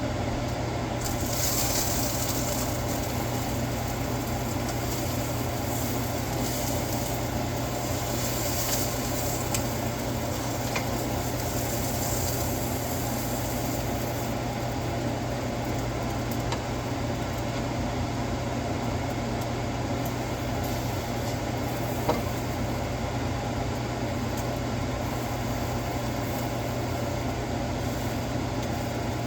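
Birria tacos sizzling in a hot pan, the sizzle strongest for roughly the first dozen seconds, over a steady low hum. A single click about 22 seconds in.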